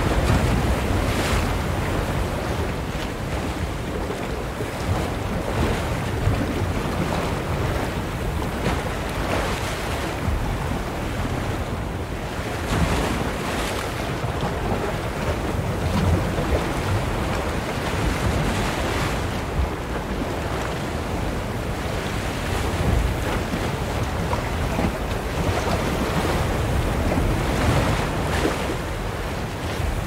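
Ocean waves splashing on a shore: a continuous rush of surf, with a wave breaking and washing in every few seconds.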